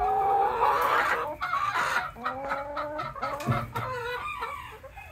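Laying hens clucking and calling, with several drawn-out, held calls from hens waiting to get into a nest box.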